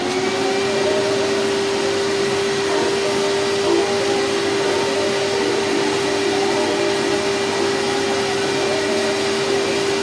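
Vacuum cleaner switched on right at the start and running steadily, a constant hum over the rush of air as its hose sucks over a freshly drilled steel plate.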